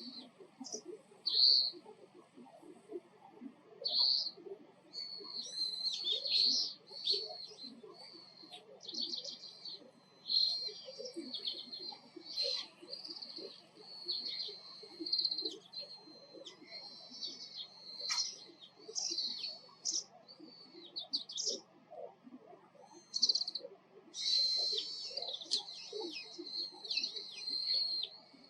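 Oriental greenfinch calls: repeated short twittering notes and trills, coming in bursts with brief pauses. The calls are busiest from about five to thirteen seconds in and again near the end.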